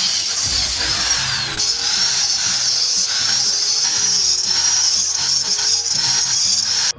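Background music over a power tool running with a high whine that sags and recovers in pitch, over a gritty hiss. Both cut off abruptly at the very end.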